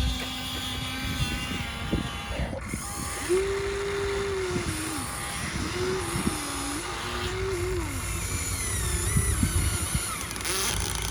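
Radio-controlled model excavator's electric motors and hydraulic pump whining. The pitch steps up and down in several stretches as the machine works, over a rattling, noisy rumble.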